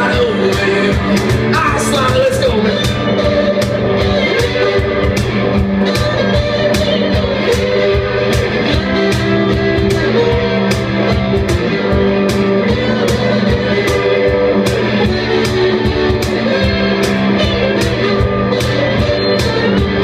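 Live band playing blues-rock: guitar, drums keeping a steady beat, and a singing voice.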